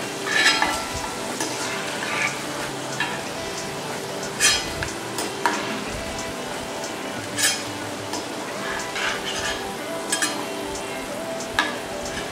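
Flour-coated sweet corn kernels deep-frying in hot oil in a steel kadai: a steady sizzle, with several sharp clicks over it every second or two. The corn is fried crisp and ready to lift out.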